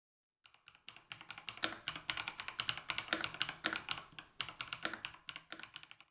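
Typing on a Kzzi K75 gasket-mounted mechanical keyboard: a fast run of key clicks, several a second, starting about half a second in and cutting off abruptly near the end.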